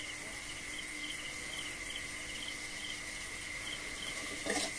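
Crickets chirping: short repeated chirps, about two to three a second, over a steady high trill. Near the end, a spatula starts clattering against the metal wok as stirring begins.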